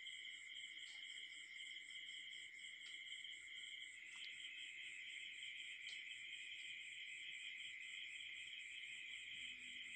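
Insects chirping steadily and quietly: a high, fast pulsing trill over a constant ringing tone. A few faint clicks as the charger's parts are handled and set down.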